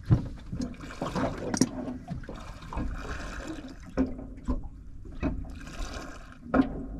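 Water lapping and slapping against the hull of a small aluminium boat, with a few sharp knocks at irregular intervals.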